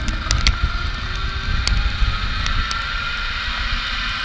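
Zipline trolley pulleys running along a steel cable: a steady whir whose pitch rises slowly, over wind buffeting the microphone. A few sharp clicks in the first couple of seconds.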